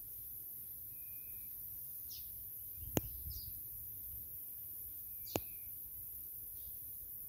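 Outdoor ambience: a few faint, short bird chirps over a low rumble, with two sharp clicks about two and a half seconds apart.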